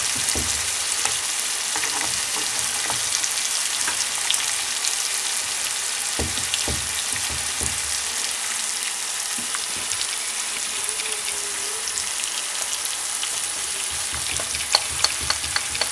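Spice-marinated sheep ribs sizzling in oil on a hot cast-iron grill pan over medium-low heat: a steady frying hiss full of fine crackles. A few low knocks and sharp clicks come from the ribs being moved in the pan, with a cluster of clicks near the end.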